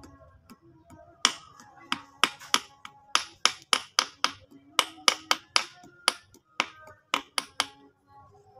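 Hammer tapping an oil seal into the bore of a Panther power steering worm box housing: some twenty sharp metal taps, about three a second with uneven spacing, driving the seal home.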